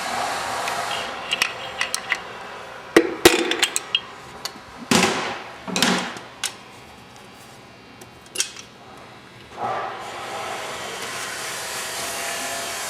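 Hand tools and metal engine parts being handled: scattered clinks and knocks, then two longer scraping sounds about five and six seconds in. A steady hiss is heard at the start and again near the end.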